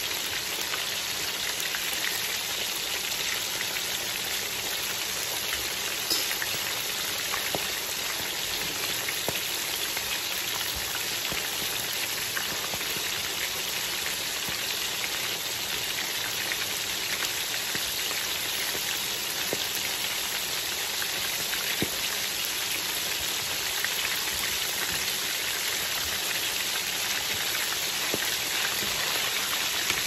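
Cornmeal-breaded fish fillets deep-frying in hot oil in a cast iron skillet: a steady, dense sizzle with small pops and crackles scattered through it.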